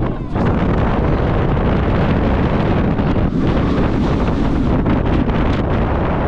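Air rushing over the microphone of a rider on the moving Blue Fire Megacoaster train, a Mack Rides launched coaster, over the steady rumble of the train running along the track. There is a brief lull right at the start.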